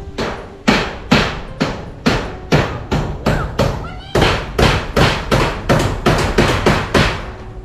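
Hammer driving nails in steady repeated blows, about three a second, after a brief pause at the start.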